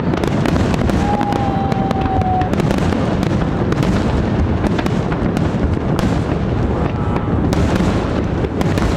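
Fireworks display: shells bursting in a dense, continuous run of bangs and crackles.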